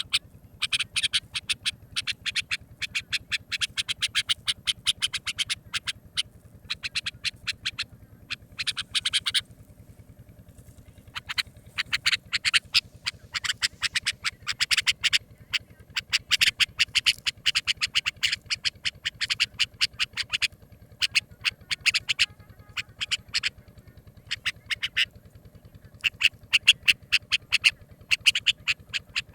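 Bulbul calls: fast chattering runs of sharp notes in bursts of a few seconds with short pauses between them, over a faint low hum. The recording is played as a hunting call to lure birds.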